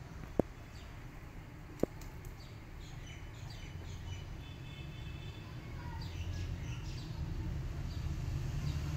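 Small birds chirping and twittering over a low steady rumble. Two sharp clicks come about half a second and two seconds in.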